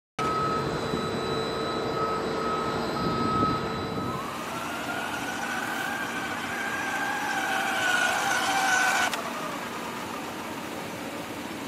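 Electric motor of a small-scale autonomous rally truck whining as it drives on a dirt track. The pitch holds steady for the first few seconds, then rises and falls as the truck speeds up and passes, and the whine cuts off suddenly about nine seconds in.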